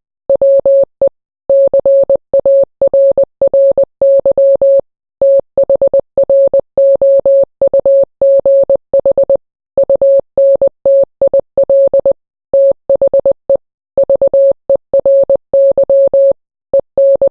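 Morse code sent as an electronic beep tone: a single mid-pitched tone keyed on and off in quick dots and dashes, with short pauses between letters and words.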